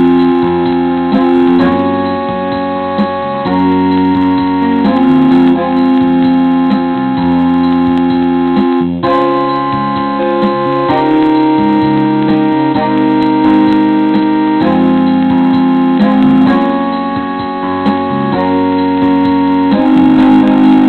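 Keyboard music: held chords that change every second or two.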